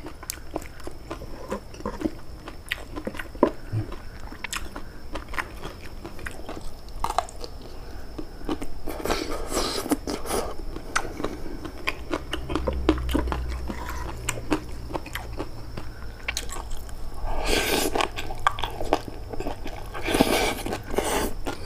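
Close-miked, wet chewing and crunching of boiled papaya stems in peanut sauce, with many small mouth clicks and smacks. A few louder stretches of a second or so stand out, about nine seconds in and twice near the end.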